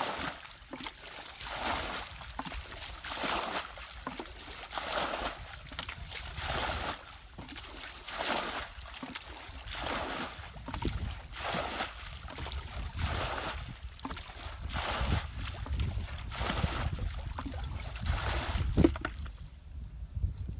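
Muddy ditch water being bailed out with a plastic bucket: a scoop and a splashing pour about every second and a half, with a sharper knock near the end.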